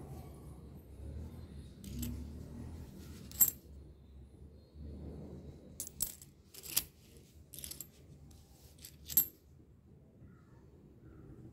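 Old Indian coins clinking against one another as fingers shuffle through a small pile on a cloth. It is a scattering of sharp metallic clinks, the loudest about three and a half seconds in and just after nine seconds.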